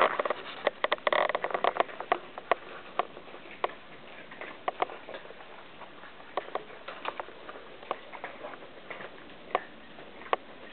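Many cats eating dry kibble from bowls on the floor: irregular crunching clicks and bowl clinks, thick in the first two seconds, then scattered.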